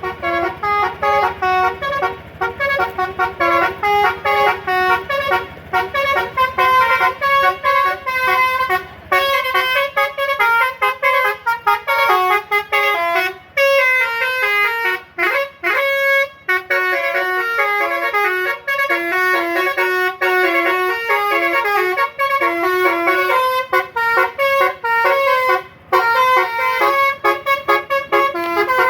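A bus's basuri telolet horn, a multi-tone horn playing a fast melody of quick notes. The melody thins out about halfway through, with a sweeping slide in pitch.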